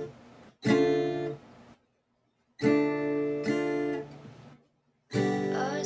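Acoustic guitar strumming three separate chords, each ringing for about a second and then dying away, with near silence between them.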